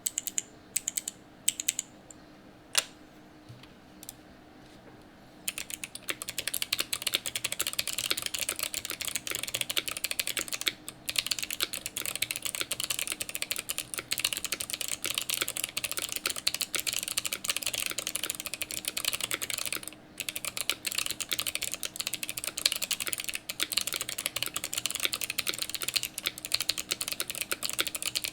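Mechanical keyboard with clicky Kailh Box Jade switches in an acrylic case and acrylic plate, fitted with GMK keycaps, being typed on. A few separate key presses come first, then from about five seconds in it settles into steady fast typing that pauses briefly twice.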